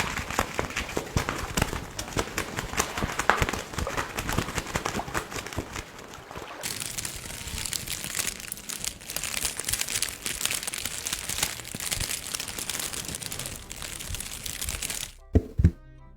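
Dense crackling and crinkling, like a material being crumpled, full of tiny clicks. Near the end it cuts off abruptly into a few sharp, separate thuds.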